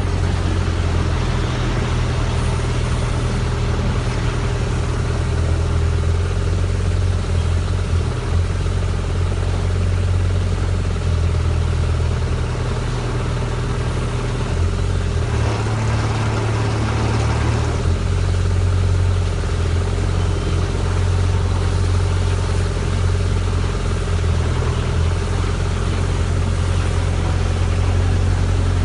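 Engine of a Fraste MD/ML drilling rig running steadily. About halfway through, for a few seconds, the engine tone shifts and a hiss joins it, then it settles back to the steady run.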